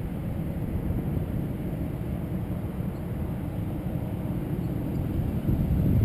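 Wind buffeting the microphone: a low, rumbling noise with no clear motor tone, swelling a little near the end.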